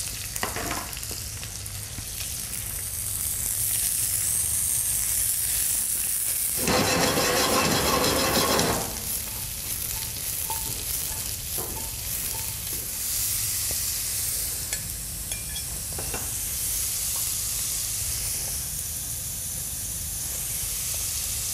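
Mixed vegetables sautéing in melted butter in a frying pan: a steady sizzle, swelling much louder for about two seconds a third of the way in.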